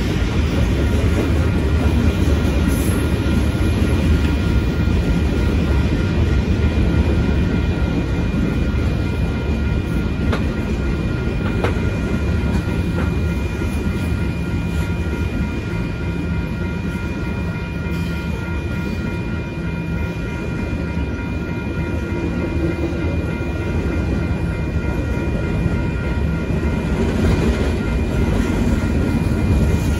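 Union Pacific manifest freight train's cars rolling past over a grade crossing: a steady, loud rumble of wheels on rail, with a steady high ringing tone above it.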